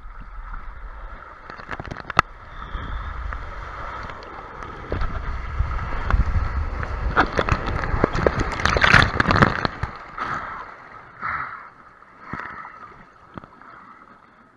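Water rushing and splashing around a tube sliding down a water-park slide, with wind rumble on the microphone; it builds to its loudest about nine seconds in, then dies away.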